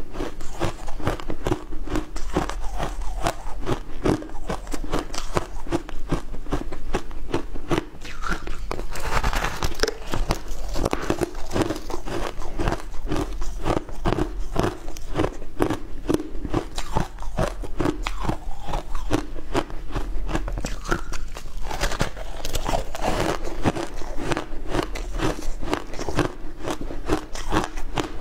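Frozen shaved ice with passion fruit pulp being bitten and chewed close to a clip-on microphone: a dense, unbroken run of crisp crunches and crackles.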